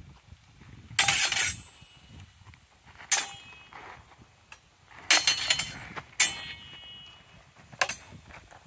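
Steel practice longswords clashing blade on blade in sparring, about five sharp ringing clangs spaced a second or two apart.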